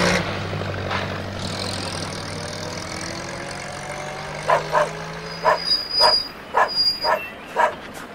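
A van and a tractor engine running at low speed as they drive by, fading out about halfway. Then a run of about nine short, sharp yelps in quick succession.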